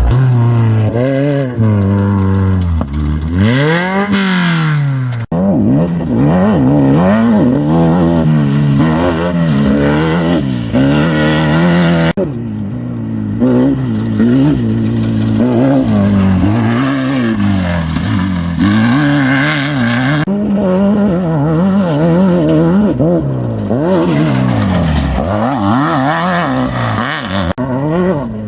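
Off-road race vehicle engines revving hard, the pitch swinging up and down again and again as the throttle is worked. The sound jumps abruptly about 5 and 12 seconds in as a different vehicle takes over.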